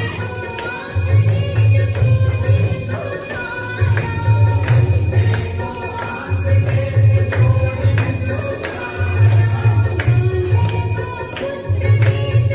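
Devotional aarti music with a heavy, pulsing bass beat in repeating phrases, with bells ringing.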